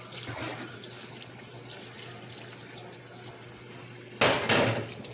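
Tap water running into a metal colander of cooked macaroni in a stainless-steel sink as the pasta is rinsed. A brief, much louder burst of noise about four seconds in.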